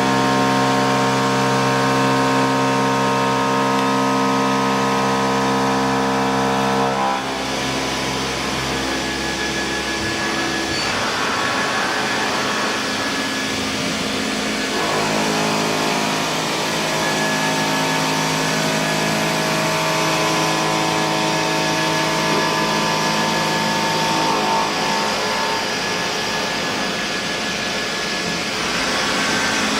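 Mazak VTC-20C vertical CNC machining center running: a steady mechanical whine of several pitched tones over a hiss, which shift to a new set of tones about seven seconds in and again about fifteen seconds in.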